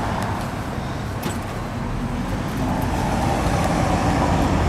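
Road traffic noise: cars passing along a town street, a steady low rumble that swells slightly in the second half.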